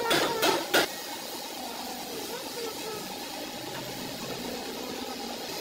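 A hand wrench clinking against metal engine-bay parts, three sharp clinks in the first second, then a low steady workshop background.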